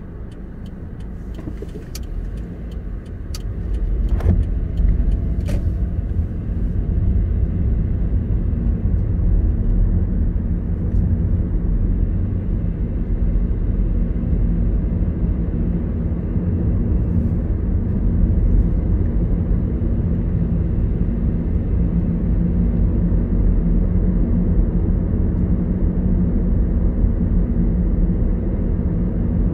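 Car cabin noise while driving: a steady low engine and road rumble that grows louder about four seconds in and then holds, with a few faint clicks in the first seconds.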